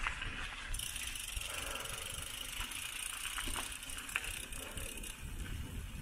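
Mountain bike being ridden: tyres rolling steadily along the path, with a few sharp clicks from the bike.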